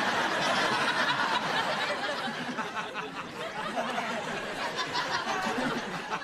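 Sitcom studio audience laughing, loudest at first and slowly dying down.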